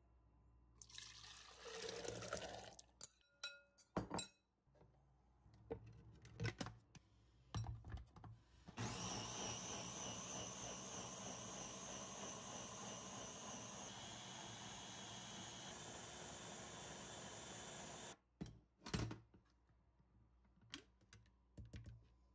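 Electric blender running for about nine seconds, churning the liquid cooked red bean filling into a smooth purée, a steady whirr that stops abruptly. Before it, a pour and a few knocks and clicks.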